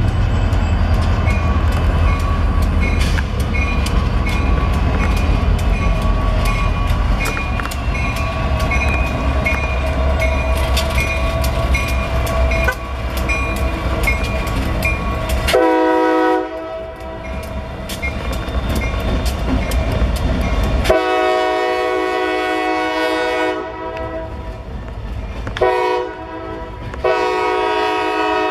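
A lashup of NYS&W diesel locomotives running past, their engines rumbling low while the wheels click regularly over the rail joints. Past the halfway point the lead unit's multi-chime air horn blows two long blasts, a short one and a final long one, the pattern sounded for a grade crossing.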